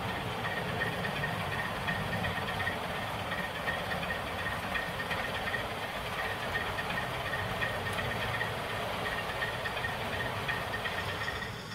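Model railway train running along the track as its coaches pull away: a steady mechanical rumble with a faint, pulsing high whine.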